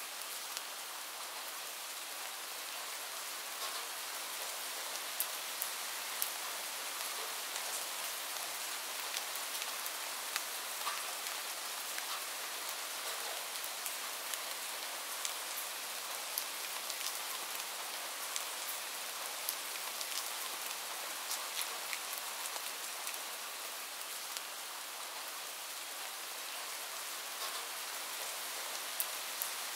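Steady rain falling, an even hiss with many scattered individual drop ticks.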